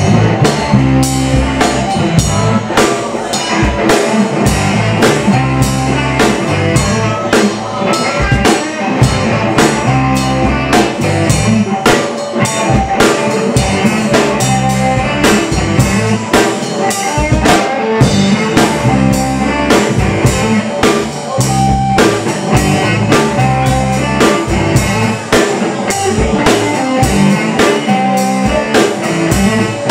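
Live blues band playing an instrumental passage: a drum kit keeps a steady beat under electric guitar, with blues harmonica played through the vocal microphone.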